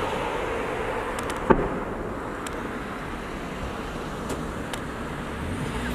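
Fireworks display: a single sharp firework bang about a second and a half in, over a steady background rumble like road traffic.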